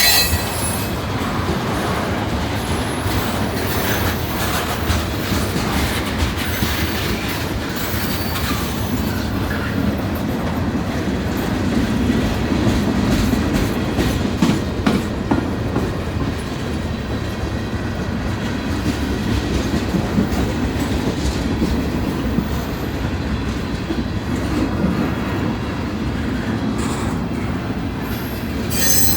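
Freight train cars rolling past, their wheels clicking steadily over the rail joints, with now and then a brief high squeal from the wheels.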